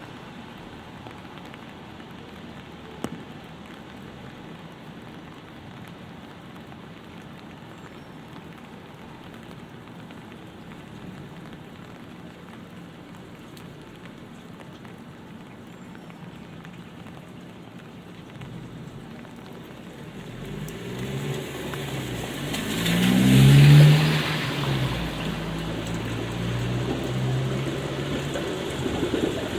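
Light rain falling steadily, with a single sharp tick about three seconds in. Past the two-thirds mark a vehicle drives by on the wet street, its engine pitch gliding as it swells to the loudest point and fades, leaving louder tyre and traffic noise.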